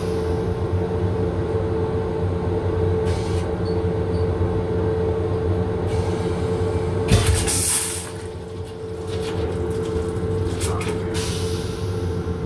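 Steady hum of an M7 electric railcar heard from inside its restroom. About seven seconds in there is a short, louder hiss.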